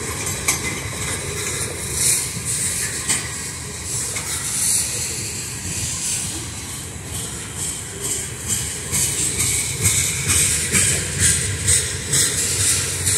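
Freight train tank cars rolling past close by: a steady rumble of steel wheels on the rails with a high hiss, crossed by irregular clicks and clanks.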